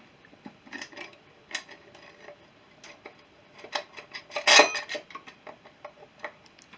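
Scattered metallic clinks and knocks as the cylinder head of a Honda CB350 twin is shifted and turned against the engine and frame, trying to clear it. The loudest clatter comes a little past halfway.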